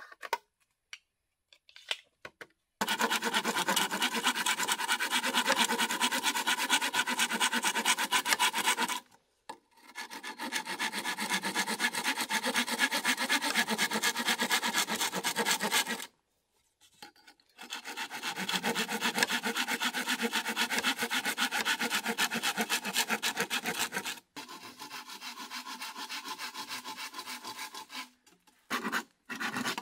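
A knife blade scraping rapidly back and forth along a green bamboo pole, in four long runs of fast, even strokes with short pauses between them; the last run is quieter.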